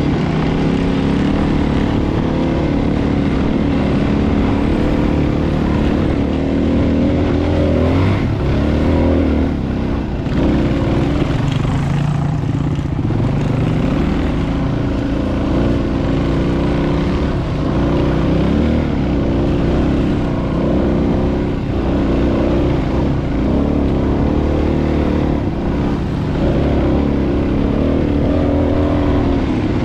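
Dual-sport motorcycle engine running while being ridden, its pitch rising and falling as the throttle revs up and down.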